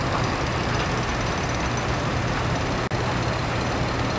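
Heavy diesel machinery (bulldozers and dump trucks) running steadily with a constant low engine hum and dense mechanical noise, broken by a momentary dropout about three seconds in.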